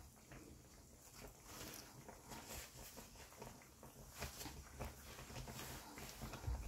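Faint bubbling of a pot of chopped apples boiling in water: a steady run of small irregular pops and crackles.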